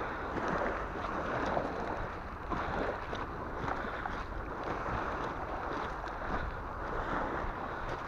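Small sea waves washing back and forth over a pebble shore, swelling and easing, with scattered faint clicks of stones. Wind rumbles on the microphone underneath.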